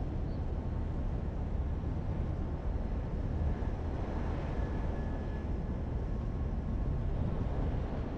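Steady low rumble of downtown street ambience, mostly distant traffic.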